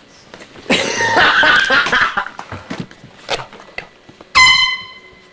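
Air horn blasted twice, loud: a long, rough-sounding blast of about a second and a half, then a short, clean blast near the end.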